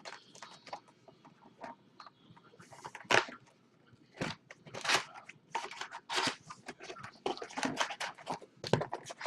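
Crinkling and rustling of a trading-card hobby box's wrapping and foil packs as the box is cut open and the packs are handled. Sharp crackles come sparse at first and then thick and loud from about three seconds in.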